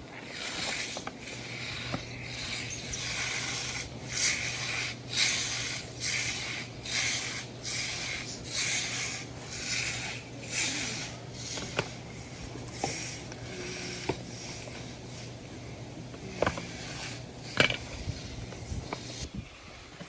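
Rhythmic rasping rub strokes, roughly one or two a second, thinning out after about twelve seconds, with a few sharp clicks near the end over a steady low hum.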